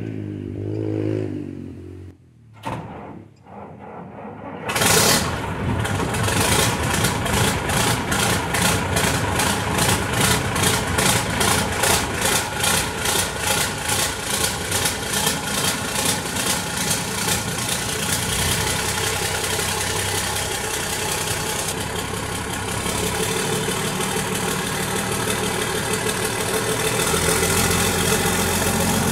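Mercedes-Benz truck diesel engine starting about five seconds in, after a quiet moment with a couple of clicks. It runs with a fast, even pulsing beat that settles into a steady idle.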